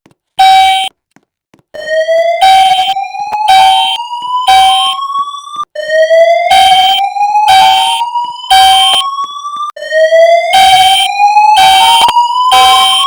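School fire alarm system sounding its evacuation signal: loud short horn blasts in groups of three (the temporal-3 evacuation pattern), overlaid from about two seconds in by a slow whoop tone from the voice-evacuation speakers that rises in pitch over about four seconds, three times in a row.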